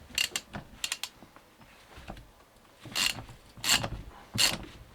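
Hand tools working on a steering rack as it is taken apart: a few short metallic rasps and clicks, the loudest three coming at about three, three and a half and four and a half seconds in.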